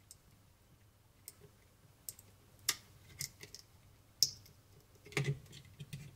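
Faint, scattered small clicks and taps from handling the plastic internals of an opened Roccat Kone Aimo Remastered mouse as the scroll-wheel LED panel is worked loose; the sharpest click comes about four seconds in, with a quick cluster about a second later.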